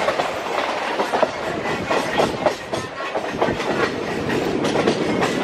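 Wheels of a moving suburban electric multiple-unit (EMU) local train clattering over rail joints, with steady running noise of the train at speed.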